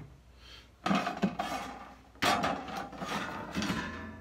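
Sheet metal being slid and dragged across a workbench, scraping and rubbing, with a few knocks as handheld electric metal shears are set against it. There is a short bout of scraping about a second in and a longer one from about two seconds in that slowly dies away.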